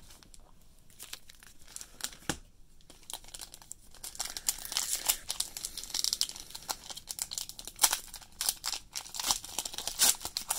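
Foil-wrapped trading card packs being handled: a few small taps and rustles, then from about four seconds in dense, continuous crinkling and tearing of the pack wrappers as a pack is pulled out and opened.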